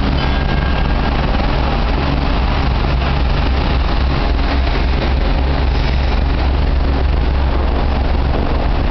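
Harbour tugboat's diesel engines running close by, a steady low rumble with a faint hum.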